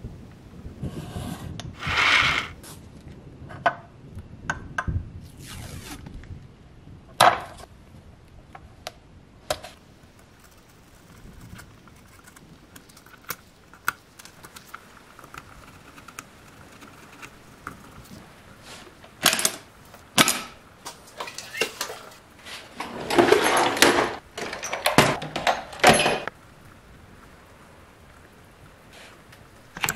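Masking tape being pulled off the roll, torn and pressed onto plastic toy body parts: scattered clicks and taps of handling, with a few longer tearing pulls of tape in the last third.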